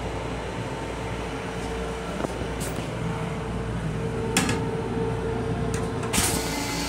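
Steady rumble and hum of a Long Island Rail Road M7 electric railcar, heard inside its restroom. A few short clicks and knocks come through, the loudest about six seconds in as the push-to-flush button is pressed.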